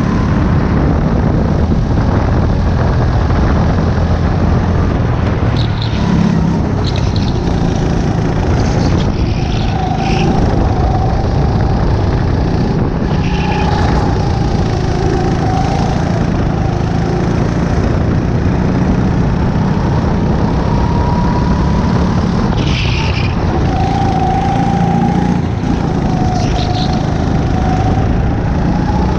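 Racing kart engine running at speed, its pitch dropping into the corners and climbing again on the straights, over a dense, loud low rumble.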